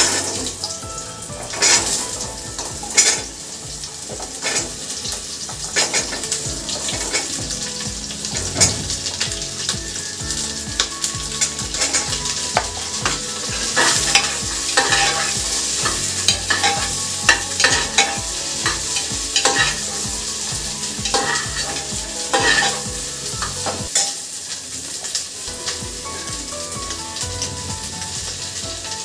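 Chopped vegetables sizzling as they fry in hot oil in an aluminium pressure cooker. They land in the pan with a loud burst at the start, then a steel ladle stirs them, scraping and knocking against the pot many times over a continuous sizzle.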